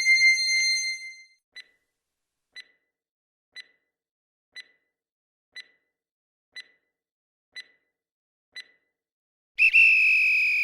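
Quiz countdown-timer sound effect: a chime rings out at the start, then eight short ticks come once a second, and a loud held beep sounds for about a second near the end to mark that time is up.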